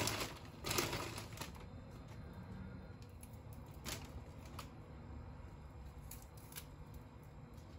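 Soft rustling and scattered light clicks of hands handling fresh spinach leaves and laying them on bread on plates, busiest in the first second or so, with a few more clicks later.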